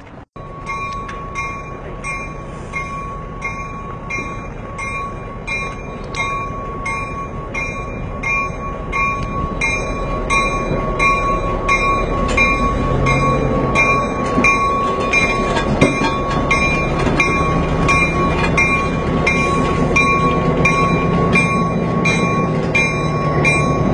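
Diesel locomotive moving slowly alongside a platform, its engine rumble growing louder as it comes closer, while a bell rings steadily about once every three-quarters of a second.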